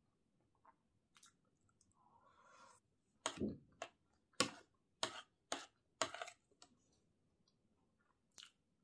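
Close-miked chewing of vegetable chow mein: soft wet mouth noise, then a run of sharp clicks between about three and six seconds in and one more near the end.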